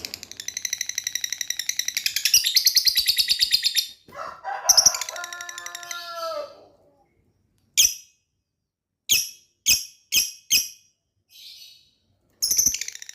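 Lovebird chattering in a fast, high, rapid-fire trill, then a rooster crows for about two seconds. After that come five short separate high chirps and another burst of rapid trilling near the end.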